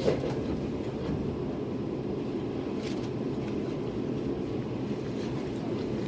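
Steady low rumble and hum of a stopped electric commuter train, heard inside the carriage, with its onboard equipment running. A short thud right at the start fits the doors shutting after the closing chime.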